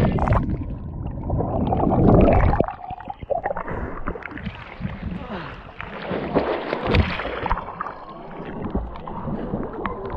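Muffled underwater rushing and bubbling from a camera plunged into the sea by a jump. About two and a half seconds in it breaks the surface, and there is irregular water sloshing and splashing around it.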